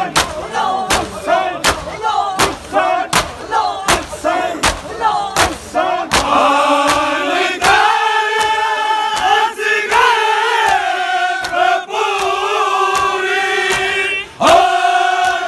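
Men performing matam: sharp open-hand slaps on bare chests land about one and a half times a second, with group shouting between them. About six seconds in, a loud noha chanted in unison with long held notes takes over, and a few slaps still mark the beat.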